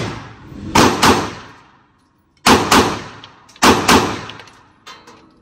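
Handgun shots at an indoor shooting range: three sharp double cracks about a second or more apart, each trailing off in the range's reverberation.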